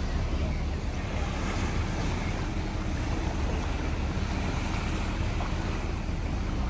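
Steady outdoor ambience: a low rumble under an even wash of noise, with a brief high whistle about four seconds in.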